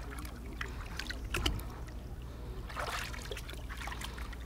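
Shallow seawater splashing and lapping as someone wades in the tidal flats: scattered small splashes with a louder swish about three seconds in. A low steady hum sits underneath.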